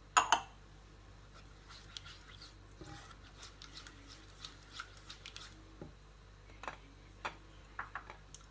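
A silicone spatula stirring egg yolks, yogurt and lemon zest in a pot, making soft scrapes and light taps. There is one sharp knock just at the start.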